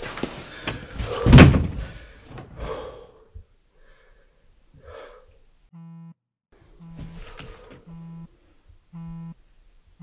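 A door shuts with a heavy thud as a man slumps back against it, followed by a couple of long exhales. From about six seconds in, a phone buzzes in short even pulses, roughly one a second.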